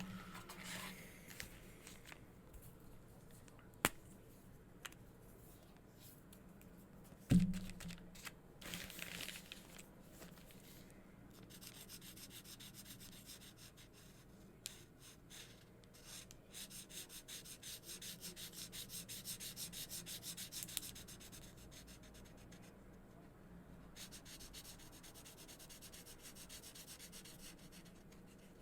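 Marker tips scribbling on paper in rapid back-and-forth colouring strokes, with a couple of light knocks in the first part.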